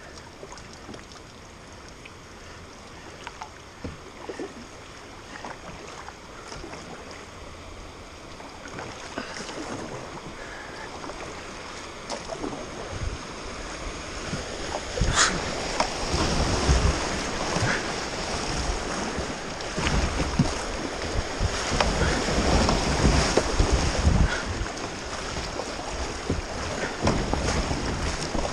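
Rushing water of a shallow river riffle under a paddled kayak, growing steadily louder from about halfway through as the boat runs into the white water. Paddle splashes and a sharp knock about halfway through sit over low wind buffeting on the microphone.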